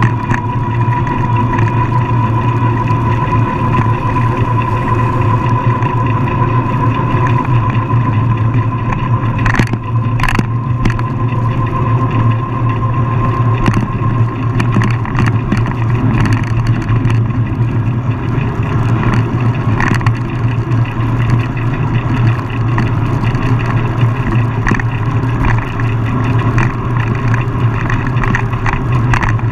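A motor vehicle's engine running steadily at road speed, with tyre and wind noise, picked up by a camera mounted outside the vehicle. A low hum and a higher steady whine run under it, with two brief clicks about ten seconds in.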